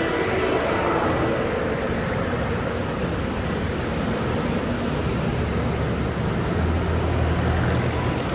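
Steady rushing noise of street traffic, with a low engine hum coming up near the end.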